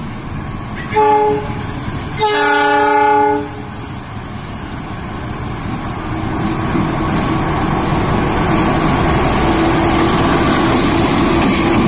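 KAI CC 206 diesel-electric locomotive sounding its horn: one short blast about a second in, then a longer blast of about a second and a half. Its engine and the train's rumble then grow steadily louder as it approaches and passes.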